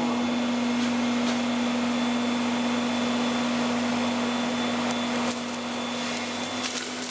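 Electric magnesium-melting furnace running: a steady low electrical hum over an even rushing noise of the running plant. The noise eases slightly about five seconds in, and a few scattered crackles come near the end.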